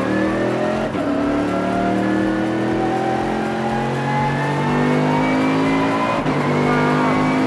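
Bentley Continental GT3's twin-turbo 4.0-litre V8 pulling hard on track, heard from inside the cockpit. Its pitch climbs steadily, with two upshifts where it breaks and drops, about a second in and again about six seconds in.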